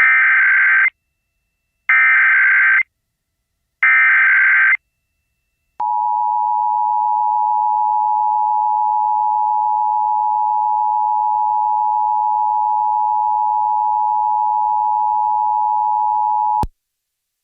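Emergency Alert System activation tones: the SAME header, three short bursts of warbling digital data tones about two seconds apart, then the two-tone attention signal, a steady dual tone held for about eleven seconds that cuts off suddenly.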